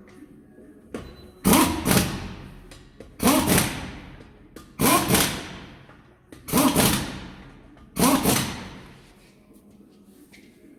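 Impact gun on its lowest setting, fired in five short bursts about a second and a half apart, snugging up the wheel bolts one by one. Each burst starts loud and fades quickly.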